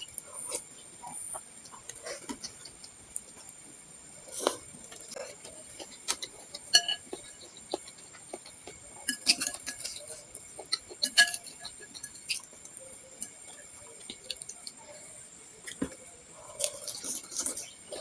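Close-miked eating of bakso: spoon and fork clinking against the bowl among scattered clicking mouth sounds, in irregular groups with short pauses between.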